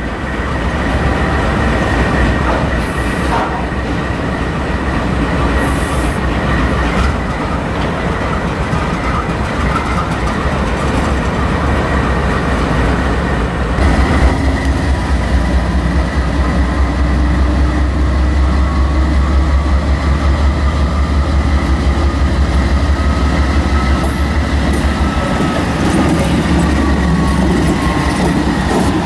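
BNSF GE diesel freight locomotive's engine rumbling steadily, heavier in the second half. Over it comes a high, thin wheel squeal with some clatter from rail cars rolling through the yard, and a second squeal tone slowly gliding in pitch near the end.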